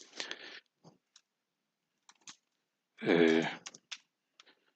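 Computer keyboard keys clicking in scattered, irregular keystrokes. A brief breath comes at the start, and a short murmur of voice about three seconds in is the loudest sound.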